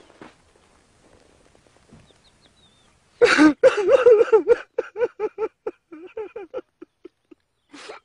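A man breaks into loud wailing sobs about three seconds in, then into quick short sobs, about three or four a second. Before that there is only faint rustling.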